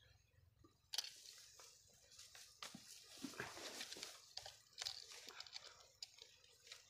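Faint handling noise: a scoped, wooden-stocked rifle being lifted and shifted inside a dry-grass hunting blind, with a sharp click about a second in and then scattered light clicks and rustles.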